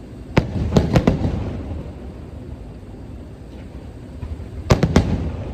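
Aerial fireworks shells bursting: a quick cluster of four sharp bangs under half a second in, then three more near the end, each trailing off in a low rumble.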